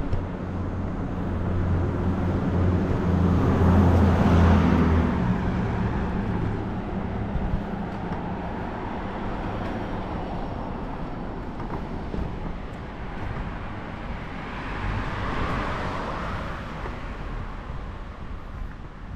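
Cars passing on the road: an engine hum that swells and goes by about four seconds in, then a second car's tyre noise rising and fading near the end.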